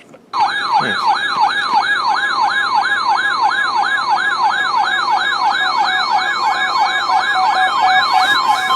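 Weather radio's electronic siren-style alert tone, a fast repeating yelp of sweeps about three times a second, sounding as a new warning comes in.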